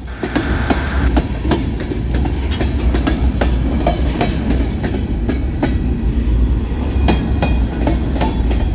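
Kansas City Southern freight train cars rolling past, wheels clicking irregularly over the rail joints over a steady low rumble.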